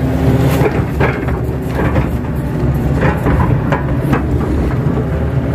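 Kato excavator's diesel engine running under load, heard from inside the cab, with repeated clanks and knocks from the boom and bucket as it dumps and digs wet pond mud.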